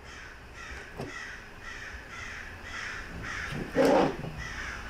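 A bird's harsh call repeating about three times a second, with one loud knock a little before the end, as of a part or tool set down hard on the bench.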